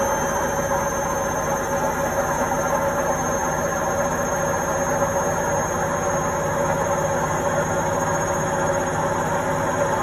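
Indesit front-loading washing machine on its spin cycle at full speed: a steady whine at a constant pitch over the even rumble of the drum.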